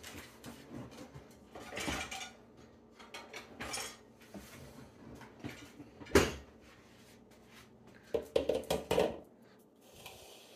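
Kitchen utensils being handled: a stainless steel box grater and a mixing bowl fetched and set down on the counter, a string of knocks and clatters. The loudest knock comes about six seconds in, and a quick run of rattling knocks follows near the end.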